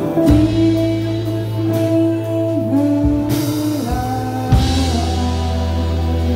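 Live band playing: a singer holding long notes that slide between pitches, over acoustic guitar, electric guitars, bass and drums.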